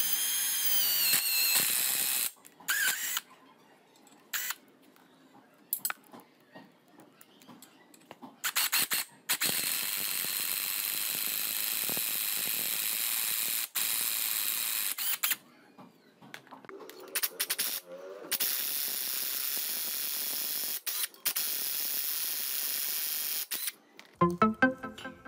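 Small electric motor of a homemade drill press running in three long steady bursts, switched on and off with quiet gaps and clicks between. Its pitch falls during the first second.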